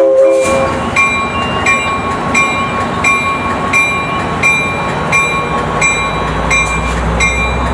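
Railroad bell ringing steadily, about three strokes every two seconds. A low train rumble builds over the last couple of seconds.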